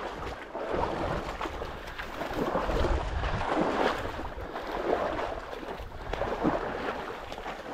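Wind buffeting the microphone in gusts over open marsh, mixed with the rustle and splash of steps through wet sedge and bog water.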